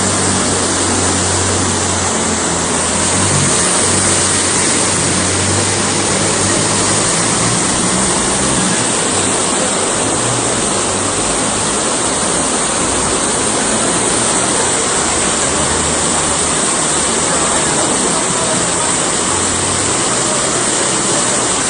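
Loud, steady rush of water, with a low hum underneath in the first few seconds.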